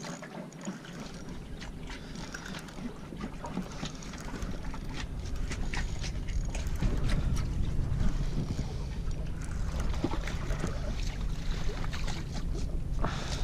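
Wind buffeting the microphone, a low rumble that sets in about a second in and grows stronger, with small water slaps and clicks around the boat. Near the end a hooked fish splashes at the surface.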